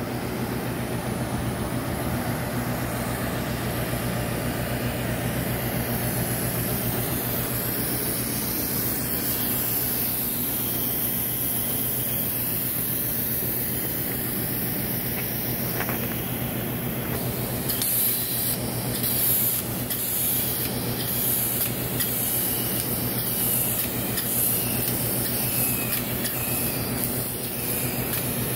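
Spray equipment running with a steady hum and hiss; about two-thirds of the way in, a spray gun starts hissing on and off as grey roof coating is sprayed.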